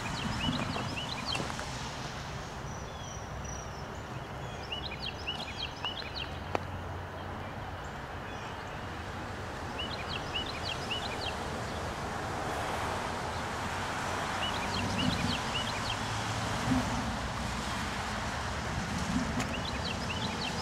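A songbird repeating a short phrase of quick, high chirping notes about every five seconds, five times, over steady outdoor background noise.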